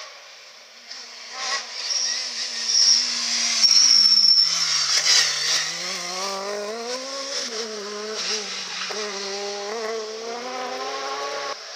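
Rally car engine at high revs. The revs drop as it brakes into a hairpin, with a brief high tyre squeal, then climb in steps through the gears as it accelerates away.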